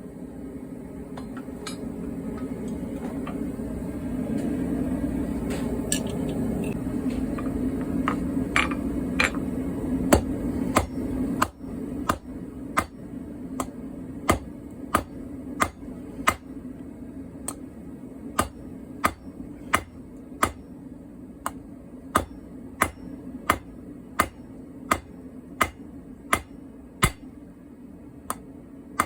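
Hand hammer striking steel on an anvil: a few scattered blows, then a steady run of regular strikes, about one and a half a second, through the second half. A steady low drone runs underneath, loudest in the first half.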